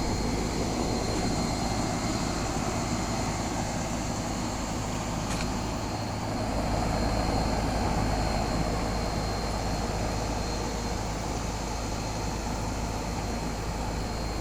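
1996 Janitrol central air-conditioner condensing unit running steadily: the compressor's low hum under the even rush of the condenser fan.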